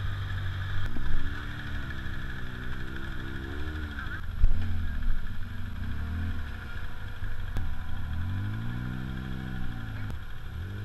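Off-road vehicle engines: a steady idle underneath, with an engine revving up and dropping back twice. There is a thump about four seconds in.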